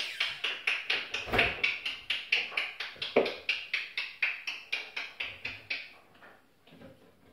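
African grey parrot making a rapid, even run of sharp clicks, about four a second, that stops about six seconds in, with a few faint clicks after.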